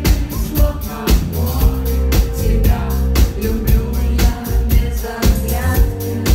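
Live pop song: a woman singing lead over a band with a steady drum beat, bass and synth chords.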